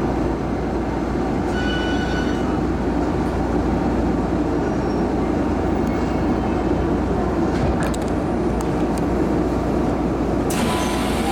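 Steady low rumble and hum inside the rear cab of a Shizuoka Railway A3000 series electric train. A few light clicks come near the end, then a brief hiss.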